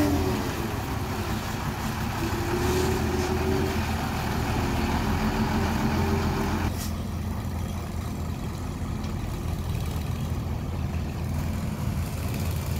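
Hyundai dump truck's diesel engine running steadily at low speed as the loaded truck manoeuvres, a constant low hum. A noisier hiss over the engine falls away about seven seconds in.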